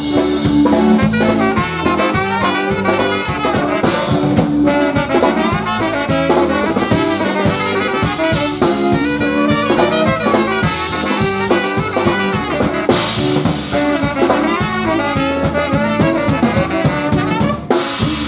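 Live polka band playing an instrumental break, with trumpet and saxophone carrying the melody over a steady drum-kit beat.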